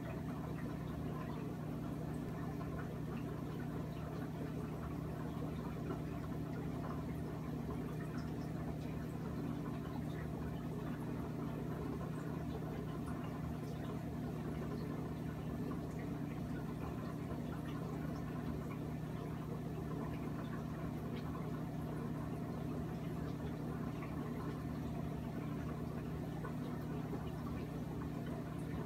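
Steady low hum of running aquarium equipment, with faint trickling and bubbling water from the filter.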